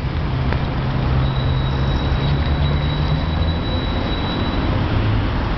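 Steady low engine hum of nearby road traffic. A thin high whine runs from about a second in until near five seconds.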